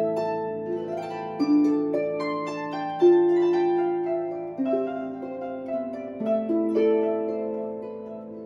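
Celtic harp played solo: a melody of plucked notes that ring on over sustained bass notes.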